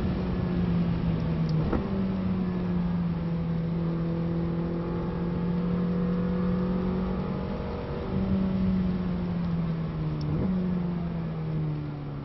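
McLaren 600LT's twin-turbo V8 heard from inside the cabin while the car slows hard: the engine note slides down and steps back up at each downshift, three times.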